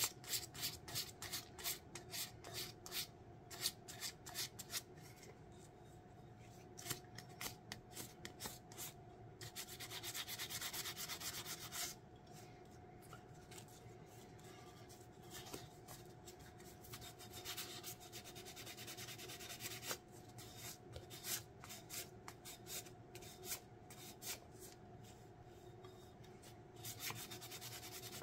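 Sandpaper being rubbed by hand over the epoxy-coated rim of a glittered stainless steel tumbler, smoothing rough spots in the first coat. It comes as runs of quick scratchy back-and-forth strokes, with a quieter stretch in the middle before the strokes start again.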